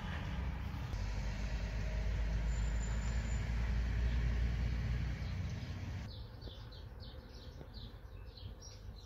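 A steady, loud rumbling noise that cuts off suddenly about six seconds in, followed by small birds chirping repeatedly, a few short high chirps a second.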